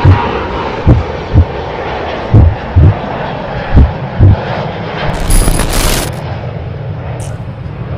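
Steady jet airliner engine noise, with deep bass thumps falling in pairs about half a second apart, and a short crackling burst of static about five seconds in.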